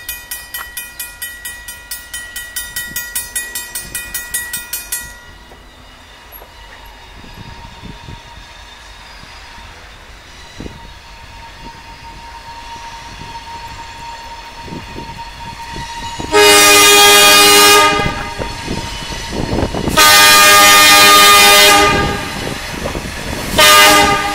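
Railroad grade-crossing bell ringing rapidly, about three to four strokes a second, stopping about five seconds in. The approaching train's rumble then grows, and its air horn sounds two long blasts and a short one near the end, the start of the standard grade-crossing horn signal.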